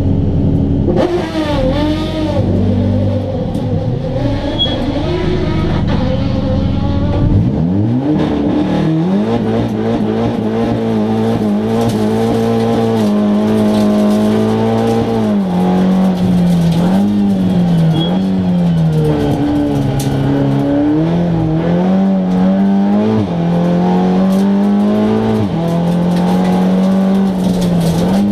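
Seat Leon Cup race car's turbocharged four-cylinder engine, heard from inside the cabin. It idles with a few throttle blips, then about seven seconds in the revs climb as the car pulls away, and it runs hard through the gears, the revs dropping and rising again with each shift.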